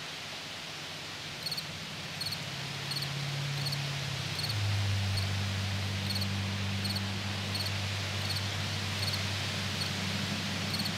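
Outdoor background: a steady hiss with a short high chirp repeating evenly, about one every 0.7 seconds, over a low hum that drops in pitch and grows slightly louder about four and a half seconds in.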